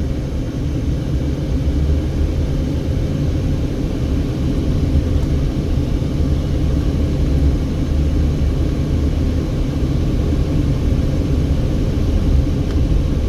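Steady low rumble of a car being driven: engine and tyre noise at an even level.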